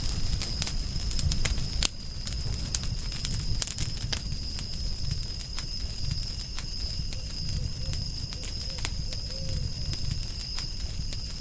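Campfire crackling and popping in irregular sharp snaps over a low steady rumble of the flames, with a steady high-pitched tone running underneath. A faint low bird call wavers in the second half.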